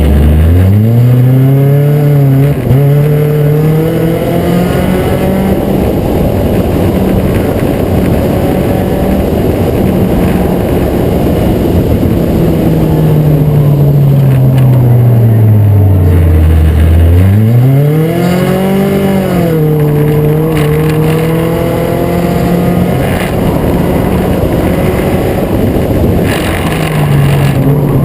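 Acura Integra race car's four-cylinder engine running hard: its note drops as it slows for a corner at the start and again about 16 seconds in, then climbs back as the car accelerates onto the straight.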